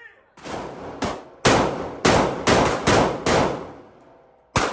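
Gun fired at a shooting range, about nine shots in an uneven rapid string, each ringing out briefly, with a last shot after a pause near the end.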